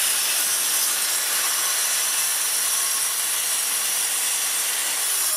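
Parkside PZKS 2000 B2 sliding compound mitre saw running steadily, its 24-tooth blade cutting through a board.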